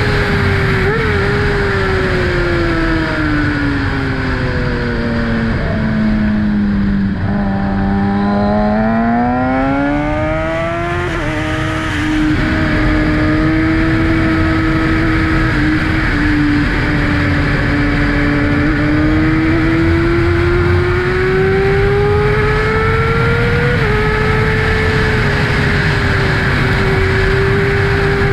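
2012 Kawasaki ZX-6R's inline-four engine running through an M4 Tech 1 exhaust, heard from the rider's seat on the move. Its note falls as the bike slows about six to nine seconds in, climbs back, then rises gradually while cruising, over steady wind rush on the microphone.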